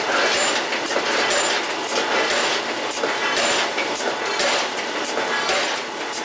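Forging-plant machinery running: a steady, dense mechanical din with frequent sharp metallic clicks and clanks at uneven intervals.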